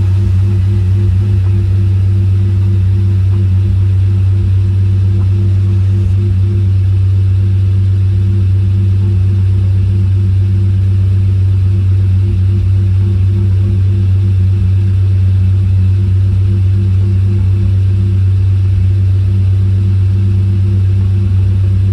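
Lamborghini Murciélago V12 engine idling, a steady low hum that holds an even pitch throughout.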